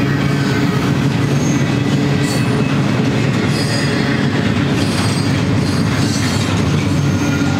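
Double-stack intermodal freight well cars rolling past on the rails: a steady heavy rumble with short, high wheel squeals now and then.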